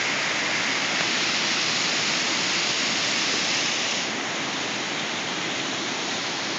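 Fast stream of white water rushing and splashing over rock ledges: a steady rush that drops slightly in level about four seconds in.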